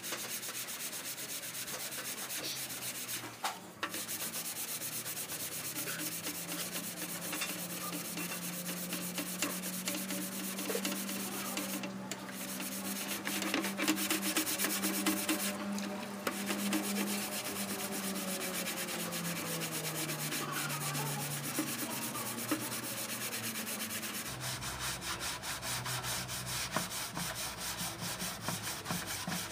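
Hand wet-sanding of body filler on a car fender with a sanding block: quick, continuous back-and-forth rubbing strokes of abrasive on the wet filler, broken by a few short pauses.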